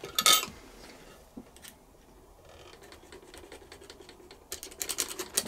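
A small steel part from a Singer 201K's rotating-hook assembly clinks once, sharply, as it is set down on the wooden cabinet. Near the end comes a quick run of light metal clicks and scratches as fingers work in the hook and bobbin-carrier area.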